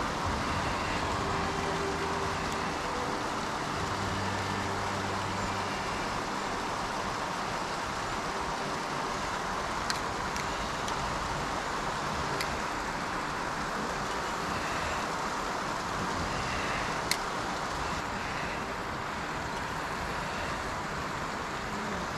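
Steady rush of water pouring over a small river weir. A faint low drone sits under it for the first few seconds, and three short sharp clicks come near the middle.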